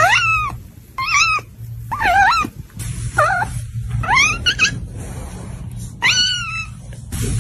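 A cat meowing repeatedly while a hand pets it, giving about seven short, bending, complaining calls roughly once a second.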